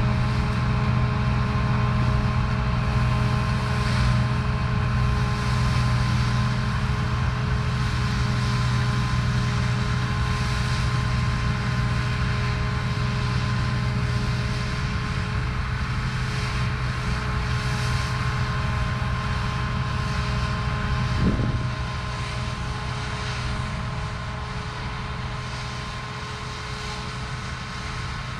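Claas Lexion 430 combine harvester running while threshing rapeseed: a steady drone of engine and threshing machinery with several steady whining tones, growing fainter as it moves away. About three quarters of the way through there is a brief sharp sweep, after which it is noticeably quieter.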